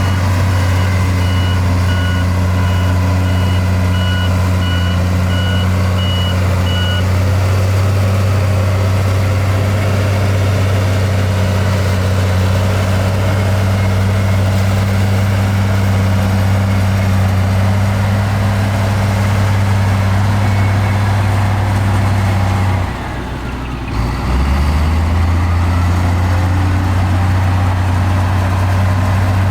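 The heavy diesel engine of earthmoving machinery runs steadily with a deep, even hum. For the first several seconds a reversing alarm beeps at a regular pace, the sign of a machine backing up. About 23 seconds in the engine sound briefly drops away and then comes back.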